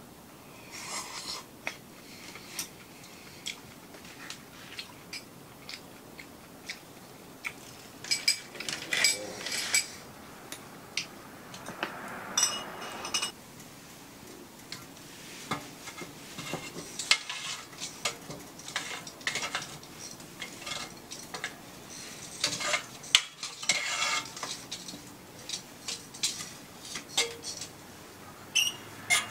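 Irregular clinks, taps and scrapes of chopsticks, metal tongs and bowls against a cast-iron pan of hot pot on a wood stove, with knocks as a split log is put into the stove's firebox with tongs.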